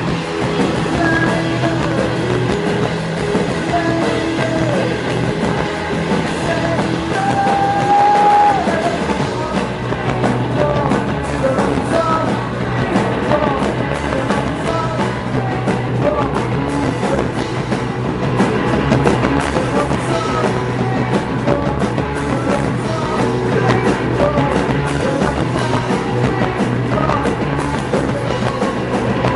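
Rock band playing live, with electric guitar and singing, at a steady loud level.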